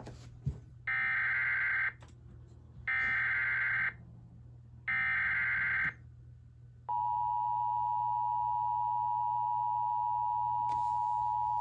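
Emergency Alert System SAME header: three one-second bursts of warbling digital data tones a second apart. Then the EAS two-tone attention signal, a steady high two-note tone, begins and holds for about five seconds. Together they mark the start of a relayed alert, here a flash flood warning.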